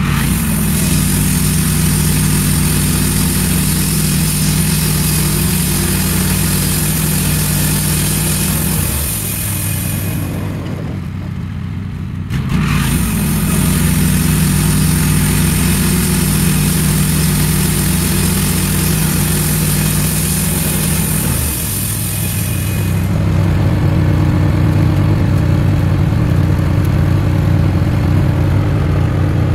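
Wood-Mizer LT15 bandsaw mill running, its engine steady under the band blade sawing an ash log, with a high hiss from the cut. The cutting sound drops out for about two seconds a third of the way in, then returns. It stops about two-thirds of the way through, leaving the engine running on its own.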